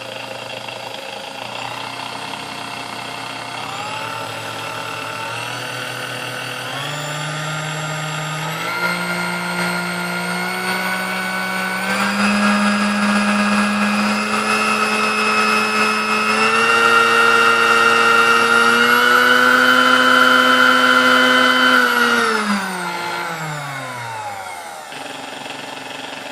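Sunbeam Mixmaster Model 12 stand mixer running with beaters fitted, its motor whine stepping up in pitch several times as it is turned up through its speeds. It is then switched off about 22 seconds in, and the motor's pitch falls as it spins down. The freshly serviced mixer sounds pretty good.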